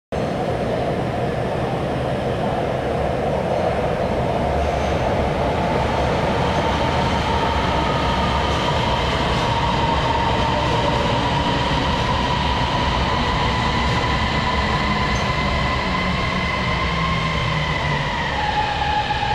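Guiyang Metro Line 1 Type B metro train running: a steady rumble of wheels on rail with a whine from the electric traction motors. The whine holds near one pitch and drops a step near the end.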